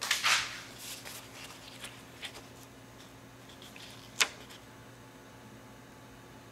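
Paper rustling as a coloring-book page is handled and shifted, with a few light ticks and one sharper click about four seconds in, over a low steady hum.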